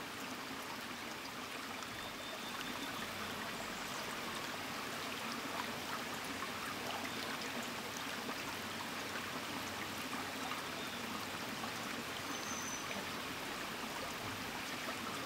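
Shallow rocky stream running over stones, a steady rush of flowing water.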